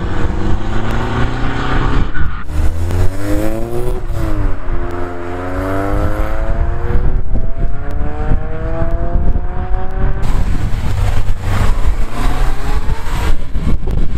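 Car engines accelerating hard on the road as cars pull away one after another. One engine revs up, drops briefly about four seconds in as at a gear change, then climbs steadily in pitch until about ten seconds in. Near the end another car pulls away loudly.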